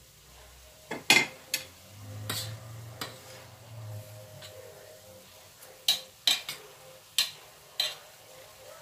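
A utensil clinking and scraping against a stainless steel skillet as diced pork is stirred. There is a run of sharp clinks, a cluster in the first few seconds and another near the end.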